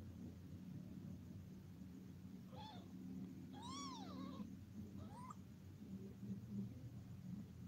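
Young kitten mewing three times: a short high mew, then a longer one that rises and falls in pitch, then a brief rising one.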